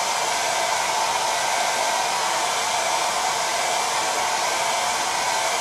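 Handheld hair dryer blowing steadily: an even rush of air with a faint motor whine.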